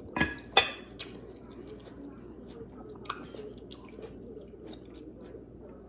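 A person chewing food close to the microphone, with three sharp clicks in the first second and another about three seconds in.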